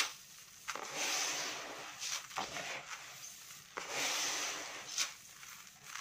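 Hands stirring a tub of mixed birdseed (millet and other small seeds) freshly coated with olive oil: a dry, gritty rustling of grains that comes in swells a second or so apart, several starting with a sharp scrape.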